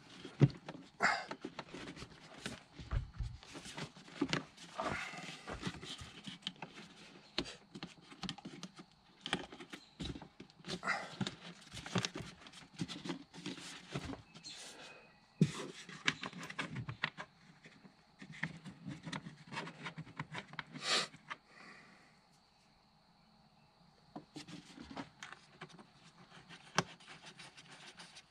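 Plastic air-intake housing and rubber intake duct being pushed and worked back into place in the engine bay: irregular plastic clicks, knocks and rubbing, with a short quiet lull about three quarters of the way through.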